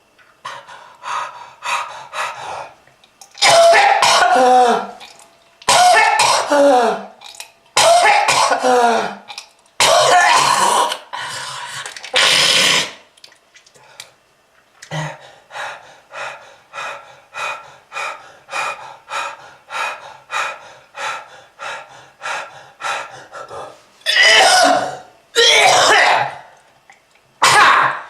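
A person coughing hard and clearing the throat: several long, loud coughing fits with a groaning voice in them, then a run of short coughs about two a second, then more loud coughing fits near the end.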